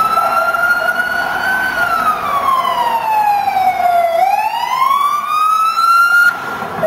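Police vehicle siren wailing: a slow rise, a long fall and a rise again, breaking off briefly near the end before starting over.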